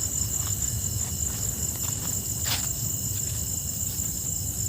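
Crickets trilling steadily in a high, finely pulsed chirr, over a low rumble of movement with a few soft footstep-like clicks.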